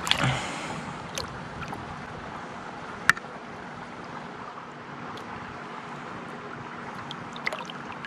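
Brief splashing right at the start as a hand grabs a small brook trout at the surface of shallow pond water. Then a steady low hiss of water and wind, with one sharp click about three seconds in and a few small clicks near the end.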